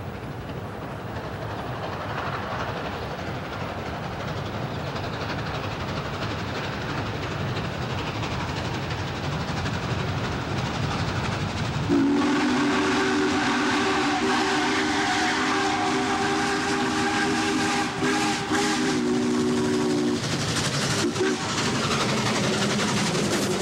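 Norfolk & Western Class J 611 steam locomotive rumbling across a steel truss bridge, growing louder as it comes on. About halfway through, its steam chime whistle sounds one long chord of several notes lasting about eight seconds, then a short toot.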